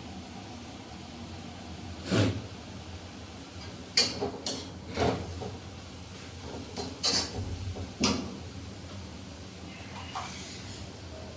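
A series of separate knocks and clunks, about six over several seconds, over a steady low hiss.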